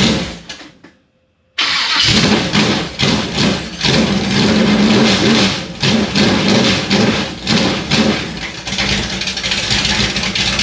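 Small-block Chevy V8 running through open fender well headers. It catches and dies out in the first second, then restarts about a second and a half in and keeps running loud and uneven, its level rising and falling. The owner puts the choppy running down to a bit of a cam and an engine that is not yet tuned.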